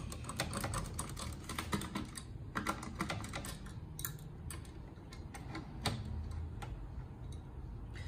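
Small irregular clicks and light metallic taps of a hand screwdriver turning out a screw from the hard-drive bracket in a desktop computer's metal chassis.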